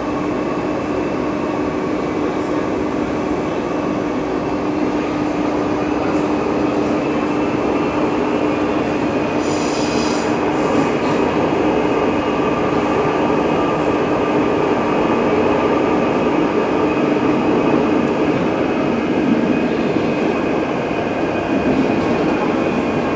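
Renfe series 446 electric commuter train running at a steady pace: a continuous rolling rumble with a constant whine. About ten seconds in there is a brief high-pitched screech.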